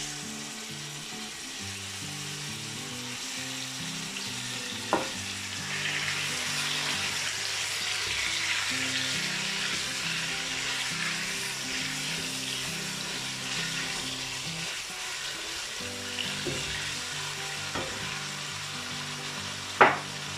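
Chunks of raw pork neck sizzling as they fry in hot oil in a pot, stirred with a spatula; the sizzling swells a little after the first few seconds. Two short knocks, about five seconds in and near the end, over quiet background music.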